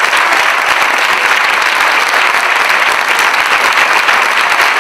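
Theatre audience applauding steadily, a dense even clapping from many hands.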